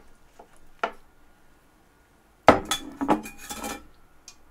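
Dishes and cutlery clinking and clattering: a couple of light clicks, then a loud burst of knocks and clinks about two and a half seconds in.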